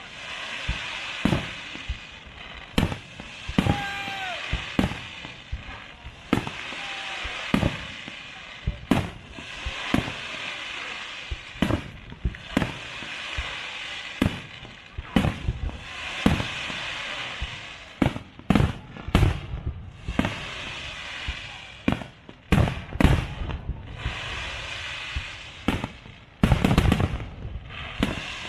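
Aerial fireworks display: shells bursting with sharp bangs, at times several a second, with crackling between the bursts. A short whistling tone comes about four seconds in, and a rapid, loud volley of bangs comes near the end.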